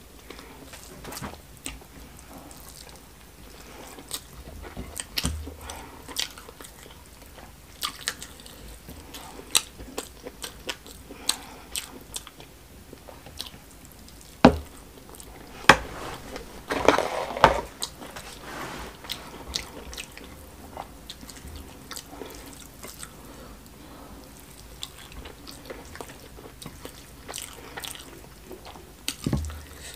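Close-miked eating sounds of someone eating smoked catfish stew and rice by hand: wet chewing and mouth smacks. Scattered sharp clicks throughout, loudest and busiest around the middle.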